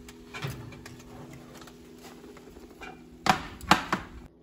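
Metal baking pan clanking as it is taken out of the oven and set down on the stovetop, with a few light knocks and then two loud clanks about three seconds in, over a steady hum.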